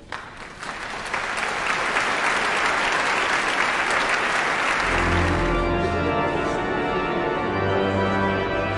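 Audience applauding, building over the first second and dying away about five seconds in as organ music with long held low notes begins.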